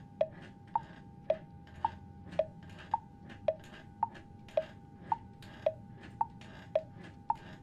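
Wall clock ticking, an even tick-tock of alternating higher and lower clicks, about two a second.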